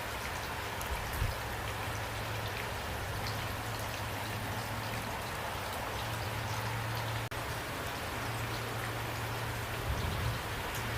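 Steady rain falling, with individual raindrops ticking on a surface over an even wash of noise. A couple of brief low thumps come about a second in and near the end.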